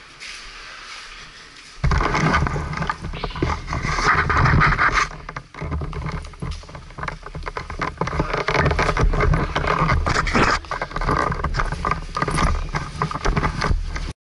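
Loud rustling and scraping of clothing rubbing against an action camera's microphone as it is carried and handled, starting suddenly about two seconds in. It cuts off abruptly near the end as the camera switches off.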